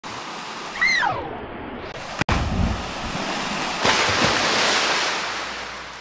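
Rushing water from a small waterfall pouring into a rock pool. About a second in, a person's short yell slides down in pitch. A little before four seconds in, a sudden loud burst of splashing water comes in and then fades away.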